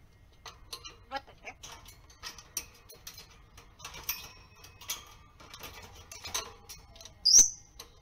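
African grey parrot vocalising in its cage: a string of short clicks and chirps with mimicked speech, "matte te" ("wait"), and a loud, high whistle a little after seven seconds in.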